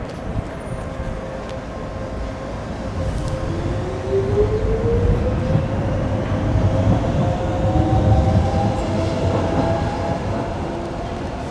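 Docklands Light Railway B92 train pulling out and accelerating past, its traction motors whining steadily upward in pitch over a low wheel-and-rail rumble. It is loudest midway and fades as the last car clears the platform.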